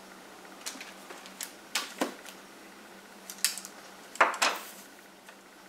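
Light knocks and taps of books being set down on a stack and handled on a table, several short sharp clicks spread over a few seconds.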